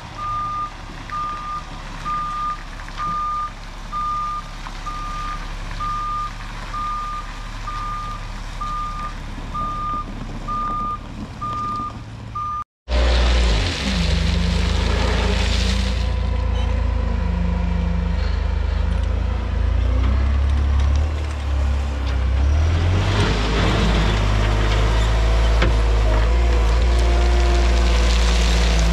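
A dump truck's backup alarm beeps steadily as the truck reverses over its engine. About thirteen seconds in it cuts to a louder ASV RT-65 compact track loader's diesel engine working under load as the machine climbs a pile of crushed stone, its engine note shifting as it pushes.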